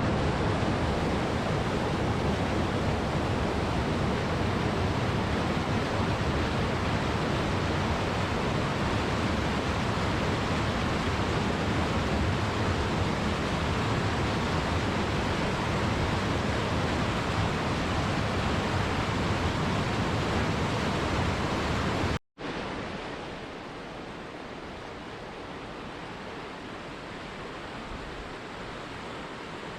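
Steady rush of falling water from a waterfall, loud and full. About three-quarters of the way through it cuts out for a moment and comes back quieter and thinner, as water rushing in another shot.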